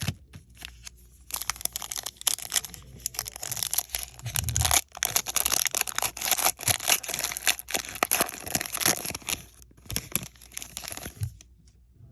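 A foil trading-card pack wrapper being torn open and crinkled, a dense crackling rustle with many sharp clicks lasting most of the time.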